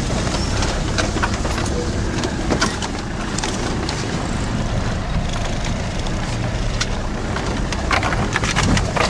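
Land Rover Defender 90's 300Tdi diesel engine running under way, heard from inside the cab as it drives a rough grassy track. Scattered clicks and knocks come from the vehicle over the bumps, growing thicker near the end as bushes brush along the side.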